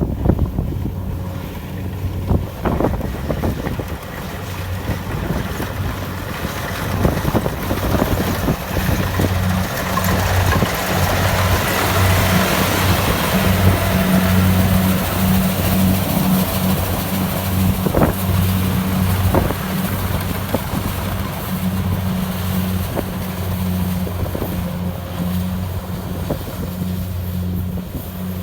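Kubota DC-70 Plus combine harvester's diesel engine running steadily under harvesting load, a constant low drone with a noisy wash of machinery over it that swells in the middle, and a few sharp knocks.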